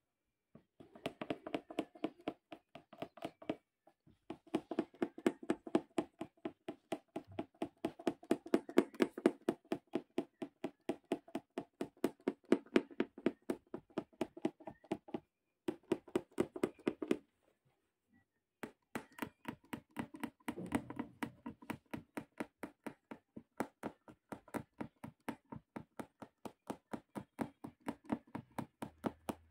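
Punch needle repeatedly stabbing through fabric stretched taut in a wooden embroidery hoop, each stroke a sharp tap in a quick, steady rhythm of about three a second. The run stops briefly a few times, with the longest break a little past the middle.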